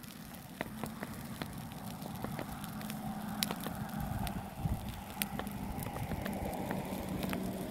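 Brush pile of dry sticks burning, with frequent sharp crackles and pops over a steady rush of flame.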